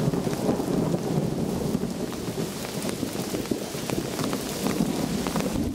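Heavy rain pelting a paved surface and rainwater running along the ground, a steady splashing hiss dotted with sharp drop splats.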